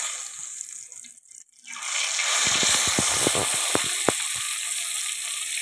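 Turmeric-marinated fish pieces going into hot oil in a clay pot. The oil hisses quietly at first, then from about two seconds in it sizzles loudly with sharp crackling pops as the fish starts to fry.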